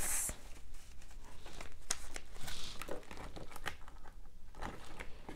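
Paper banknotes rustling and crinkling as a stack of cash is handled and tucked into a laminated cash envelope, with scattered small clicks and crinkles.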